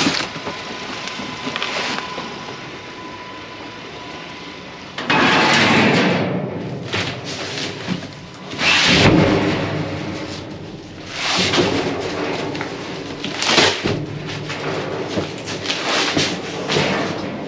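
A cardboard box packed with canvas paintings is handled and dragged inside a metal dumpster. There are several loud scraping rushes a few seconds apart, beginning about five seconds in, with knocks and rustling in between as the canvases shift.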